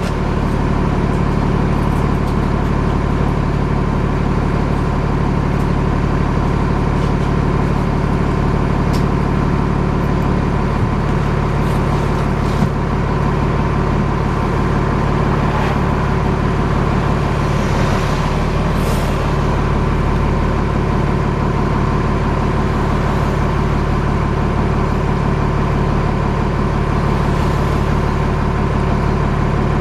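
Alexander Dennis Enviro400 double-decker bus heard from inside while under way: a steady engine and drivetrain hum with a constant whirring whine over it. A brief knock comes about twelve seconds in.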